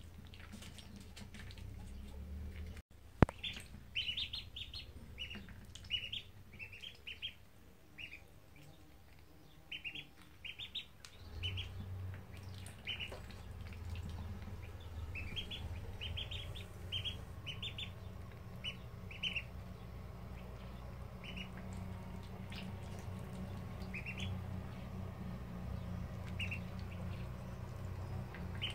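Ducklings peeping in short, high chirps, often several in quick succession, with a low steady hum behind. A single sharp click about three seconds in.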